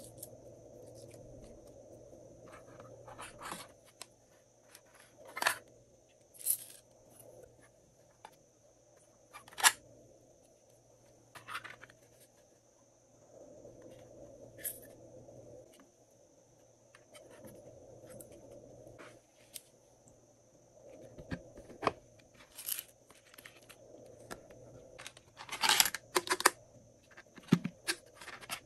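Hands handling glossy slime and hard plastic containers: soft squishing and rustling in stretches, broken by scattered sharp plastic clicks and taps, with a quick cluster of clicks near the end.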